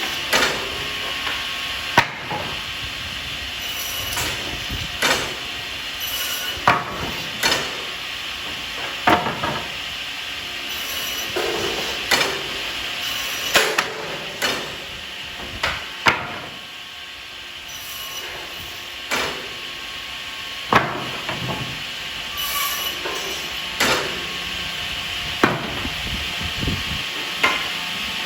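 Double-end wood cutting saw running with a steady whine, with sharp wooden knocks and clatters every one to two seconds as pieces of wood are fed through and cut.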